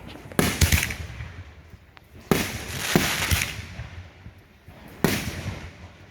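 Consumer fireworks going off: about six sharp bangs in three clusters, each trailing off in a noisy, fading tail.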